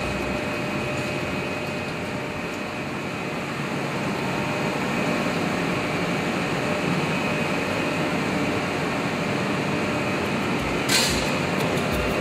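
Laboratory four-high cold rolling mill running with a steady mechanical noise during cold rolling of steel strip. Near the end there is a short hiss.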